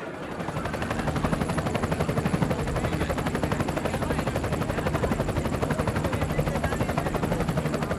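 Large helicopter flying over, its rotor blades chopping in a rapid, steady beat that grows louder over the first second.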